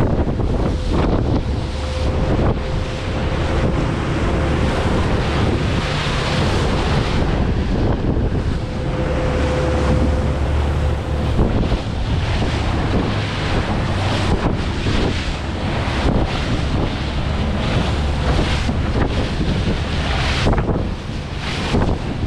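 Stabicraft aluminium boat running through choppy water: wind buffeting the microphone and spray hissing off the hull over a steady low engine rumble. A faint steady whine runs through the first half.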